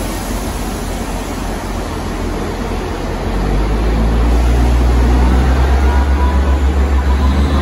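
Class 158 diesel multiple unit idling at the platform, then its underfloor diesel engines rev up about three seconds in into a loud, low, pulsing drone as the train starts to pull away.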